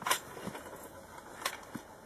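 Metal snake tongs knocking against rock in a den crevice: a couple of sharp clicks, one near the start and another about a second and a half in.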